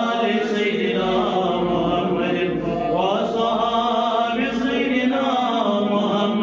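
Islamic devotional chanting by a single voice, sung in long, drawn-out melodic phrases without a break.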